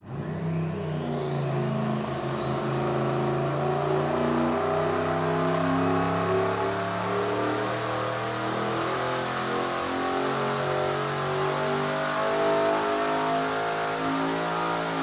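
Turbocharged engine at wide-open throttle on an engine dyno, climbing through a power pull toward about 6300 rpm. It runs with an air-to-air intercooler fitted and no fan blowing through it. A high whine rises over the first few seconds and then holds steady over the engine's note.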